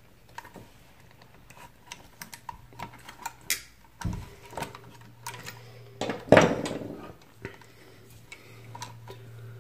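Irregular light clicks and taps of steel combination pliers and stiff copper cable cores knocking against a steel socket back box, with one louder, sharper click about two-thirds of the way through.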